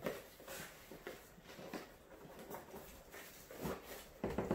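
Cardboard packaging being handled: irregular scraping and crackling of a cardboard shipping box as its flaps are worked open, with a louder burst of cardboard noise near the end as a long box is lifted out.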